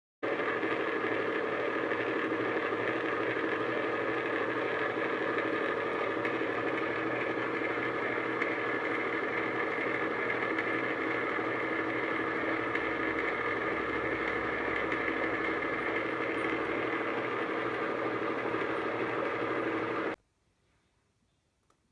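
E1N metal lathe running steadily, its motor and gear train giving a steady multi-tone whine; it starts abruptly and cuts off suddenly near the end.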